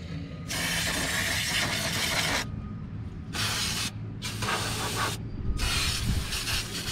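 Aerosol brake cleaner spraying through its straw onto greasy hydraulic fittings, in about four hissing bursts with short pauses between.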